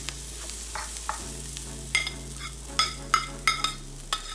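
Peppers and onions sizzling in a nonstick frying pan. From about two seconds in, about six sharp, ringing clinks sound as food is scraped off a ceramic plate into the pan.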